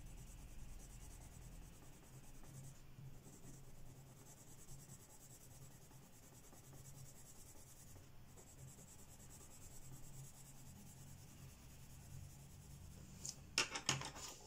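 Derwent Lightfast coloured pencil shading back and forth on copy paper: a faint, steady scratchy scribbling. A few light clicks near the end.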